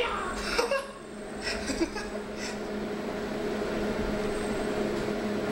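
Automatic metro train running through a tunnel as it nears a station: a steady hum from the train with a few short clicks and knocks in the first couple of seconds.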